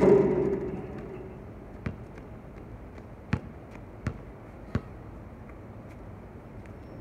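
Basketball clanging off the metal rim, which rings for about a second, then the ball bouncing on the hard court four times, the bounces coming closer together.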